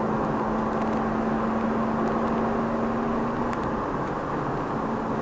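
Steady road noise of a car moving along a highway, heard from inside the cabin: engine and tyres running at an even pace. A steady hum fades out about three and a half seconds in.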